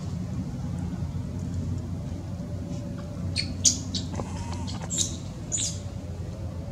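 Baby macaque giving short, high-pitched squeaks: a quick cluster a little past the middle, the loudest among them, then two more a second or two later. A steady low hum runs underneath.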